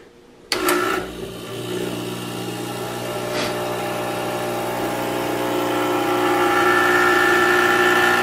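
Gaggia Classic espresso machine's vibratory pump switched on about half a second in, buzzing steadily while it primes and pushes water through to the brew head and steam wand; the buzz grows gradually louder.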